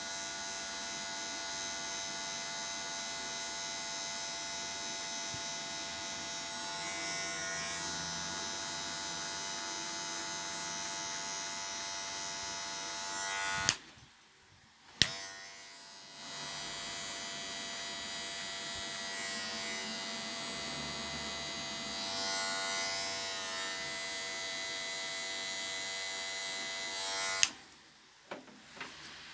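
Cordless Wahl Magic Clip hair clipper running with a steady buzz as it cuts hair on the side of the head. It stops with a click about 14 seconds in, starts again a second later, and stops with a click near the end.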